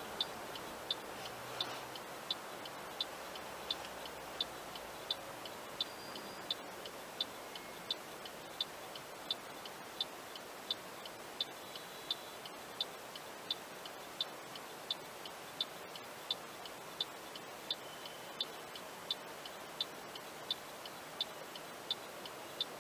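Steady, even ticking, about three ticks every two seconds, over a faint background hum of traffic.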